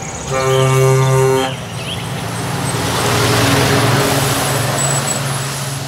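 Scania tanker semi-truck sounding its horn in one steady blast of about a second, then driving past: the rush of engine and tyres swells and fades.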